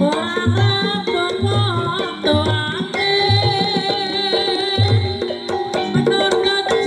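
Javanese gamelan music accompanying an ebeg hobby-horse dance: a kendang hand drum strikes deep beats under sustained melodic instrument parts and gliding melodic lines.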